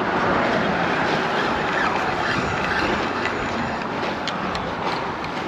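Steady rush of road traffic on a highway bridge, without any distinct single events.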